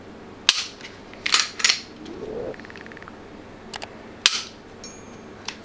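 A series of sharp mechanical clicks and snaps from a Glock pistol with a Streamlight TLR-1 HL weapon light being handled, about six in all, the loudest about half a second and just over four seconds in.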